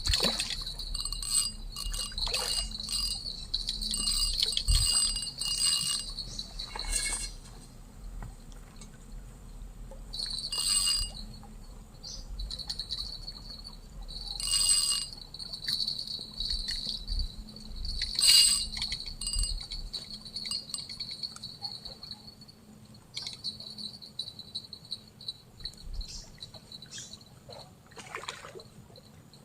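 Insects chirping, a high-pitched pulsing trill that keeps going and fades somewhat in the second half, with a few short rustling knocks cutting through it.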